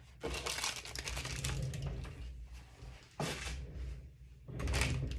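Plastic bags and packaging crinkling and rustling as small jewelry items are handled and dug out, in three bursts, with low handling bumps underneath.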